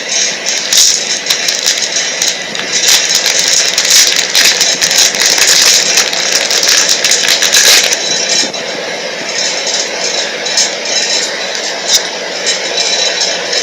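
Card packaging being worked open close to the microphone: continuous crinkling and rattling with many sharp crackles, loud throughout.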